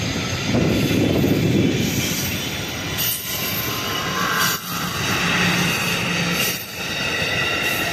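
Amtrak passenger coaches rolling past close by, a steady rush and rumble of steel wheels on rail with a thin high wheel squeal over it. The sound dips briefly a few times as the gaps between cars go by.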